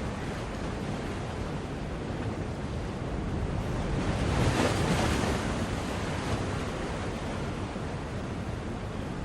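A steady rushing noise that swells and fades once, about four to five seconds in.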